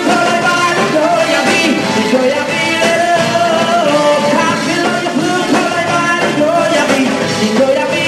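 Live band music with a sung melody line over it.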